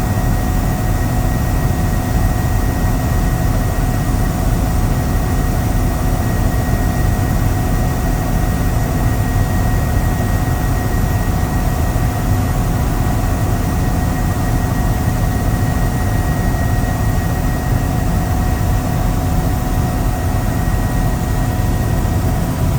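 Helicopter in steady flight: a continuous drone of engine and rotor with rushing air, and a few faint steady whines over it.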